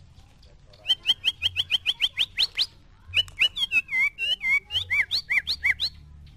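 White-rumped shama (murai batu) singing: a fast run of about a dozen clipped notes climbing steadily in pitch, then after a brief pause a varied phrase of swooping, looping whistles.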